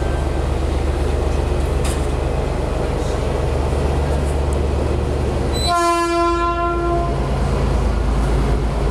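Passenger train rolling slowly into a station with a steady low rumble, and one horn blast about six seconds in, lasting a little over a second.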